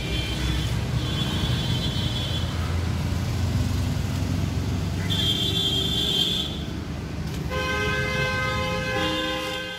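Road traffic rumbling, with vehicle horns honking: a high-pitched horn about five seconds in and a longer, lower, multi-tone horn near the end.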